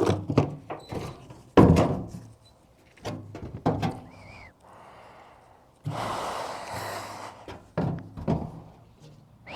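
Workshop handling noise: a series of knocks and thunks, the loudest about one and a half seconds in, a brief squeak about four seconds in, and a scratchy rasp lasting about a second and a half near six seconds, as sanding gear is set up for 80-grit paper.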